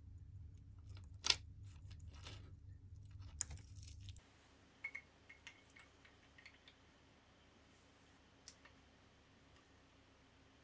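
Metal watch bracelet links clinking as the bracelet is handled, with a couple of sharper metal clicks. About four seconds in the sound drops to a few faint, light clicks of the watch case and bezel being fitted between the nylon dies of a watch press.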